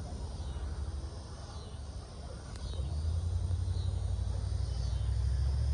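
Outdoor background with a low rumble that builds steadily louder from about three seconds in.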